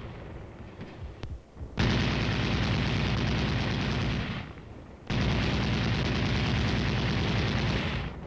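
Air-cooled Browning .30-caliber machine gun firing two long sustained bursts, the first about two seconds in and the second after a short break, each lasting a few seconds.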